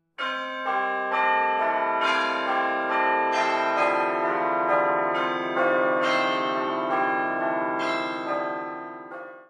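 Bells ringing a run of notes, a new strike about every half second, each note ringing on under the next; the ringing fades out near the end.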